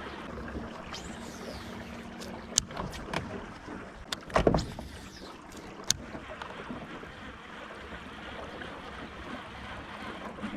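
Steady water and air noise around a small boat, broken by several sharp clicks and one louder thump about four and a half seconds in.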